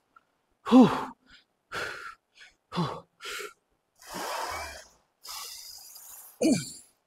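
A man breathing hard through Smith machine squat reps under about 80 kg: quick hissing breaths between loud grunting exhales that drop in pitch, the strongest about a second in and again near the end.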